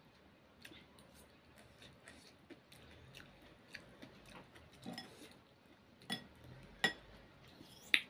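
Quiet chewing of noodle soup, with a metal fork and spoon clicking and scraping against a ceramic bowl. Three sharper clinks come in the second half.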